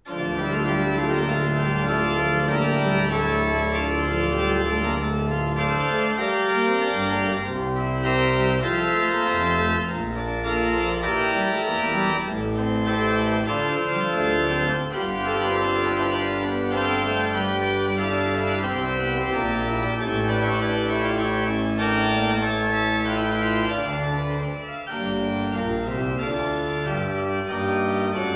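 1992 Smenge pipe organ playing a chorale prelude: it strikes in with a full chord and goes on in sustained chords over deep pedal bass notes that change every second or two.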